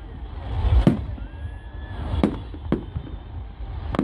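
Fireworks exploding: a deep boom swells about half a second in, followed by sharp bangs about a second in, twice more a little past the middle, and again at the end.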